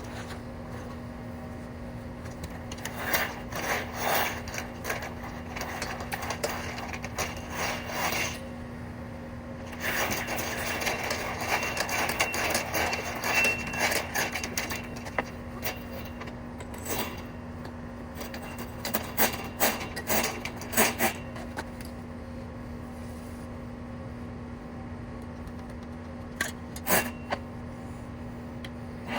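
Irregular bouts of scraping and rubbing, with a few sharp clicks near the end, over a steady low hum.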